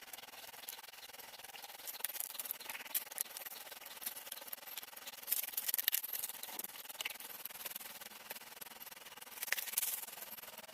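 Rustling and scraping, like something being rubbed or handled, with louder scratchy bursts near the middle and near the end.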